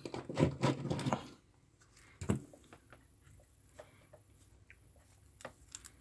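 Workbench handling noises: a short clatter of rustles and clicks in the first second or so, then a few isolated light clicks, as solder and tools are picked up.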